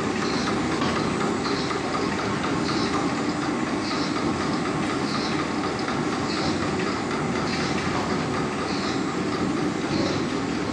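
WEKTOR BT-60 briquetting machine running, pressing cereal straw into a continuous briquette rod: a steady mechanical running noise with a short higher swish repeating a little less than once a second.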